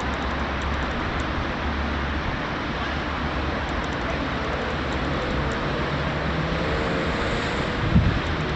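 Steady noise of road traffic, with a faint low hum and the drone of a passing vehicle. A single short thump about eight seconds in.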